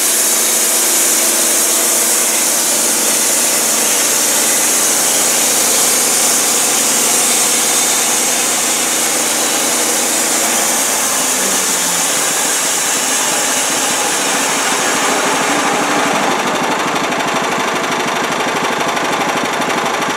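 Homemade bandsaw sawmill, driven by a 13 HP gasoline engine, running steadily under load as its band blade cuts along a log with a loud high hiss. The engine note shifts about halfway through, and the hiss eases off in the last few seconds as the cut finishes.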